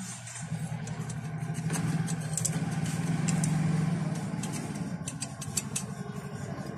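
A vehicle engine runs close by, swelling over the first couple of seconds and easing off after about four. Light metallic clicks are heard over it as an aluminium cylinder block is slid down its studs onto the crankcase.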